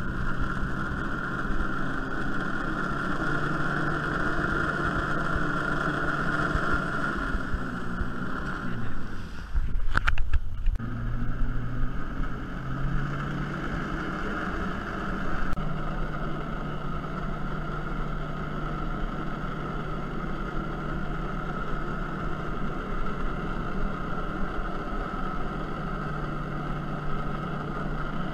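Personal watercraft engine running steadily under throttle, feeding water through a hose to a Fly Dive water-jet board. About nine seconds in it eases off with a sharp knock, then revs back up in steps and holds steady.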